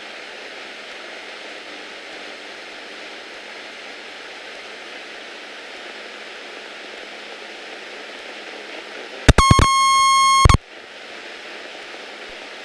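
Steady hiss of the light aircraft's cockpit noise heard through the headset intercom. Near the end a loud electronic beep sounds for about a second, typical of the stall warning horn going off in the landing flare.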